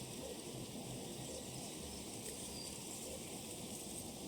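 Countryside ambience sound effect: a steady bed of insect hum and hiss with a few faint bird chirps.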